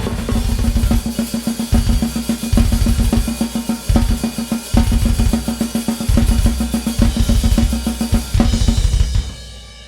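Drum kit playing fast extreme-metal blast-beat patterns, with rapid double bass drum runs in bursts broken by short stops and fills. About nine seconds in the playing stops and the cymbals ring out and fade.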